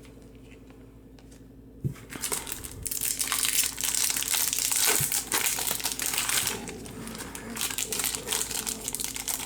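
Wrapper of a Topps Chrome baseball card pack crinkling loudly as it is torn open and handled, starting with a knock about two seconds in.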